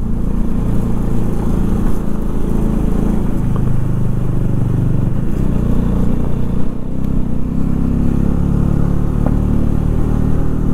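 Motorcycle engine running at low, fairly steady revs, heard from the rider's seat, over a steady rush of wind and road noise.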